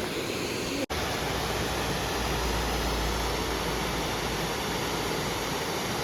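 Waterfall's steady rush of falling water. The sound cuts out for an instant about a second in, then carries on with an added low rumble for a few seconds.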